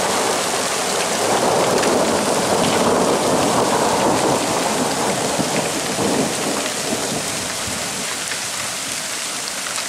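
Heavy thunderstorm downpour of rain and hail pattering steadily, with a long roll of thunder building over the first second or so and dying away after about six seconds.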